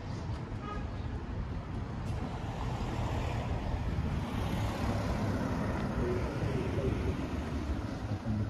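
Road traffic: cars driving past on a town street, a steady rumble of engines and tyres that swells about halfway through as a car goes by.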